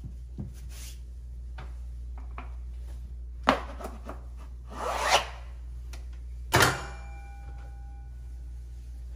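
Hands and tools working grasscloth wallpaper on a wall: a short scrape, then a rub that swells and stops, then a sharp knock that rings briefly, over a steady low hum.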